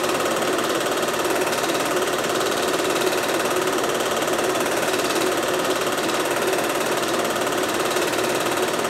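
Film projector running: the steady, fast clatter of its mechanism, unchanging throughout.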